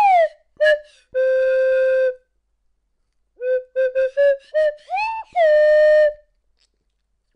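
Whistle-like sound effect in a string of notes: a falling glide, a short note, a held note lasting about a second, then a run of short notes and an upward swoop into a second held note.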